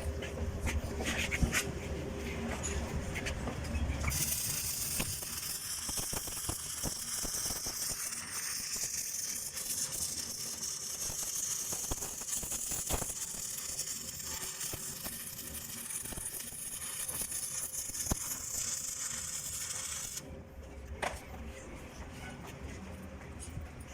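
Stick (manual metal arc) welding arc crackling and hissing steadily as a bead is run, starting about four seconds in and cutting off suddenly about four seconds before the end. Before and after the arc, a low steady hum and a few light metallic clicks.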